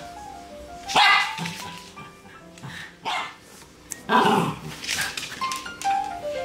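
Norfolk terrier barking three times, a hungry dog's demand for food, with a song playing underneath.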